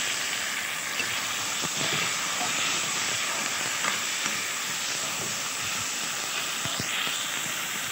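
Onions and freshly added tomato slices sizzling steadily in hot oil in a wok, with a metal spoon stirring and now and then clicking against the pan.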